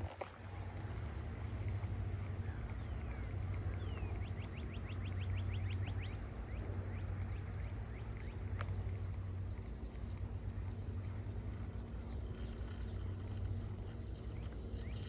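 Outdoor ambience: a steady low rumble, with a bird's quick trill of short rising chirps about four seconds in that lasts about two seconds.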